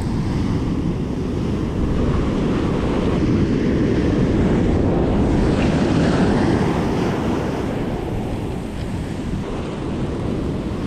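Ocean surf breaking and washing up a sandy beach in a steady wash that swells and eases, with wind noise on the microphone.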